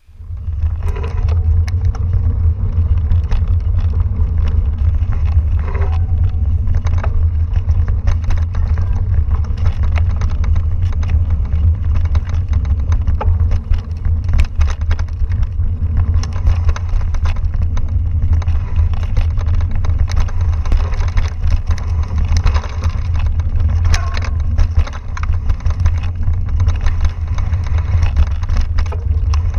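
Mountain bike riding fast down a dirt forest singletrack, heard through the ride camera's microphone: a steady heavy low rumble of wind and vibration, with frequent clicks and rattles from the bike over the rough trail.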